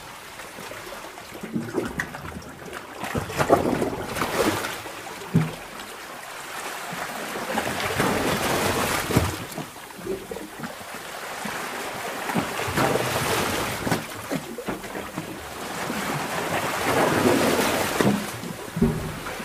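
Underwater sea-cave ambience: water surging in slow swells that build and fade every few seconds, with scattered sharp pops and knocks.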